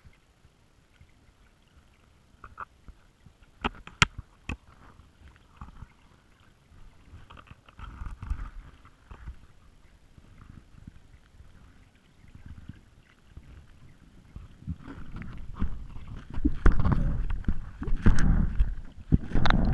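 Underwater sound heard through a GoPro's waterproof housing as the pole-mounted camera prods the silty dock bed. Scattered sharp clicks and knocks come first, then louder low rumbling and knocking water noise over the last few seconds as the camera is moved through the water.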